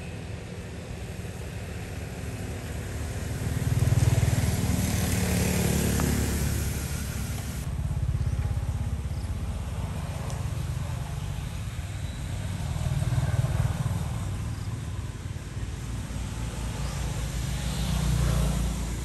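Motor vehicle engine noise, a low steady rumble that swells louder four times and falls back.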